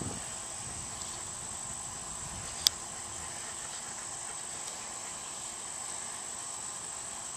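Quiet, steady hiss with a constant high-pitched whine, and one sharp little click about two and a half seconds in as the shotgun's receiver and side saddle mount are handled.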